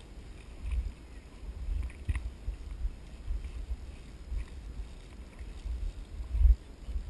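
Wind buffeting the camera's microphone, an uneven low rumble that swells and fades, over the faint hiss of a river, with a few small clicks.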